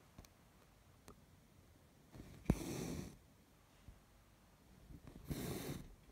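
A needle pops through stitching fabric, and each time the thread is drawn through after it with a short rasp. This happens twice, about three seconds apart.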